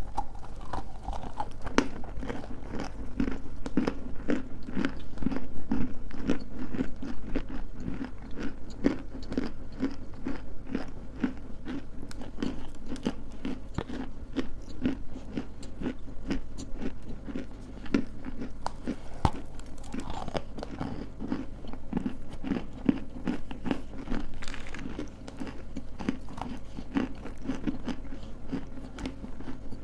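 Lumps of dry edible clay being bitten and chewed close to the microphone: dense, crisp crunching with a steady chewing rhythm.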